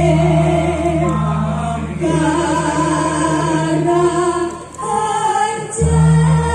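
Music sung by a group of voices in unison with a wavering vibrato over a steady low drone. The voices pause briefly about two seconds in, and the drone drops out for about a second near the five-second mark.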